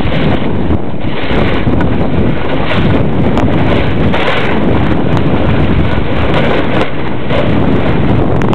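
Wind buffeting the microphone of a camera carried by a skier going downhill, a loud, uneven rushing, mixed with the hiss of skis sliding over packed snow.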